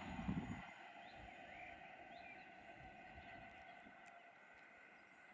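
The tail of a passing train dies away in the first second, leaving quiet outdoor air with a few faint bird chirps.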